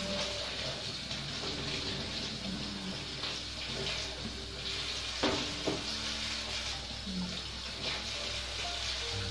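Tap water running into a stainless-steel sink and splashing over pieces of beef skin being washed by hand. Two sharp knocks a little past halfway.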